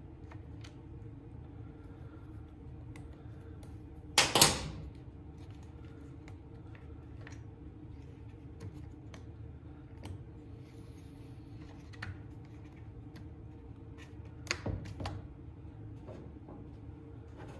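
Small clicks and scrapes of hand tools working at a chainsaw's carburetor fuel lines, with one loud clatter about four seconds in and a couple of knocks near the end, over a steady low hum.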